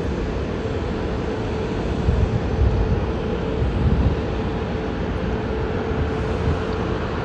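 Jet airliner engines running with a steady drone and a constant mid-pitched hum, the low rumble swelling a few times about two to four seconds in.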